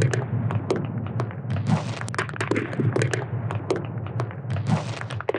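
Logo intro sound effect: a dense, irregular run of thuds, taps and clicks over a low rumble, which cuts off abruptly.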